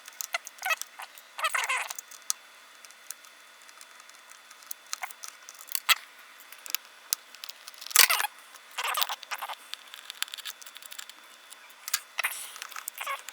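Scattered light clicks, taps and short scrapes of small hard parts being handled as a laptop's 2.5-inch hard drive is worked out of its bay, with one sharper click about eight seconds in.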